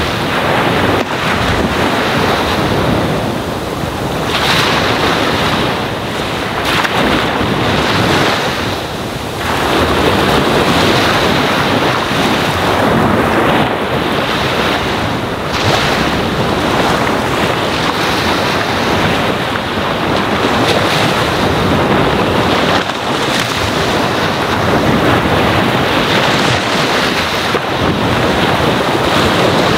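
Ocean waves lapping and washing on a sandy shore: a continuous rush of surf that swells and eases every few seconds.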